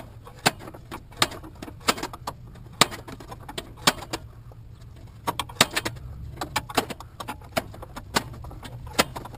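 Irregular sharp metallic clicks and clinks of hand tools on steel suspension parts, some coming in quick clusters, while bolts are worked loose.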